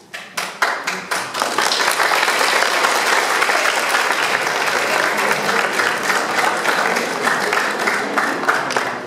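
Audience applauding: a few scattered claps at first, quickly swelling into steady, dense clapping that fades near the end.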